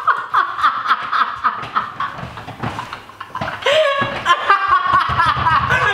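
Two men laughing loudly and helplessly together.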